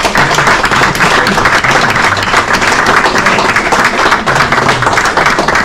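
Crowd applauding: a steady, dense clatter of many hands clapping.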